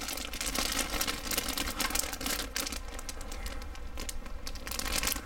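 Clear plastic bag crinkling and rustling as plastic model-kit sprues are handled inside it: a continuous run of small crackles.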